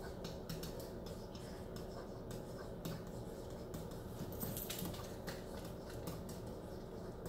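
Faint scratching and ticking of a pen writing on an interactive whiteboard, over a steady low hum.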